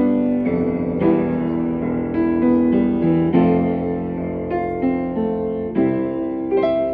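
Kawai upright piano played by hand: a slow run of chords, each struck and left ringing, with a new chord roughly every half second to a second.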